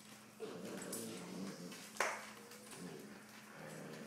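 Siberian Huskies vocalizing as they play: low grumbling sounds, with one sharp knock about two seconds in.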